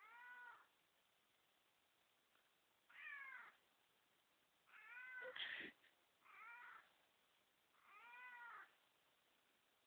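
A house cat gives five quiet meows spread a second or two apart, each rising and falling in pitch, called out in answer to its owner's coughing. About halfway through, a single cough from a person overlaps one of the meows.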